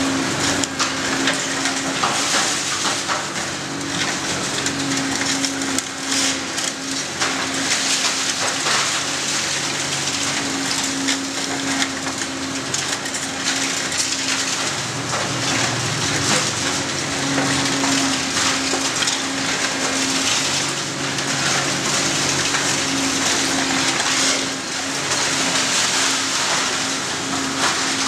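Excavator demolition grab tearing into a building: continuous crunching and clattering of breaking concrete, sheet metal and timber. Underneath runs the steady hum of the excavator's engine.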